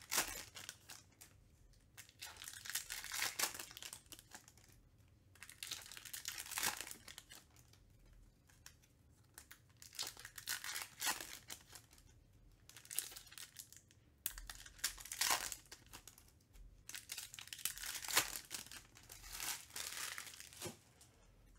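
Topps Chrome card pack wrappers being torn open and crinkled in the hands, in repeated bursts of rustling a second or two long with short pauses between.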